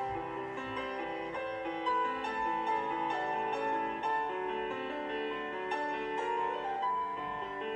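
Solo piano playing classical-style accompaniment music for a ballet barre exercise.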